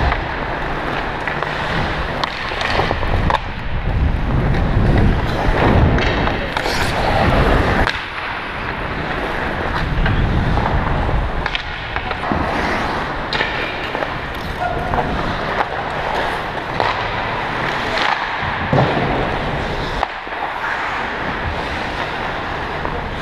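Hockey skate blades scraping and gliding on rink ice close by, with sharp stick-and-puck clacks now and then.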